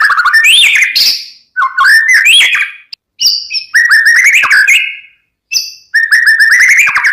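White-rumped shama (murai batu) singing loud and close: phrases of rapid repeated notes and rising and falling whistles, about four phrases with short pauses between them.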